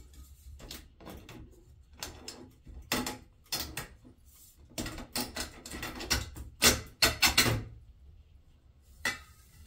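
Fluorescent tube being twisted and worked out of its lampholders in a ceiling fixture: a run of plastic clicks, scrapes and knocks, loudest in a burst about seven seconds in.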